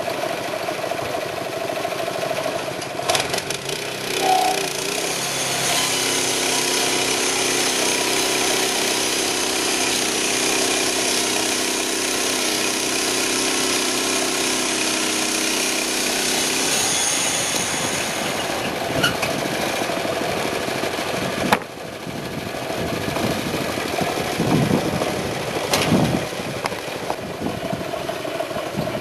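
A Jober J200 portable band sawmill running on its 6.5 HP Honda GX engine, the band blade sawing through a log. A steady higher tone joins the engine from about six seconds in until about seventeen seconds, and a few knocks sound around the mill.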